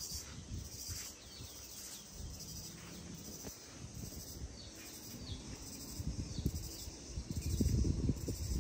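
Outdoor tropical ambience: a steady high hum of insects with a few faint, short bird chirps. An irregular low rumble on the microphone grows louder near the end.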